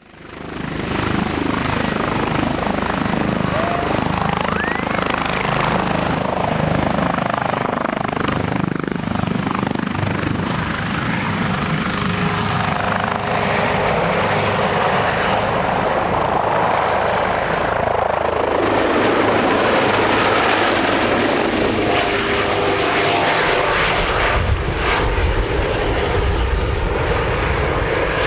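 Airbus H145M helicopter in flight: the twin Safran Arriel turboshaft engines give a high steady whine over the chop of the rotor blades. About two-thirds of the way through, the sound grows fuller and a little louder.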